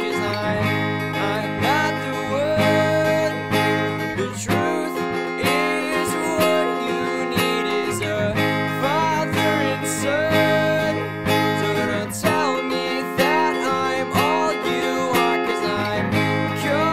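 Instrumental passage of a band's song: strummed acoustic guitar over a bass line and drums, with a higher melody of notes that slide upward.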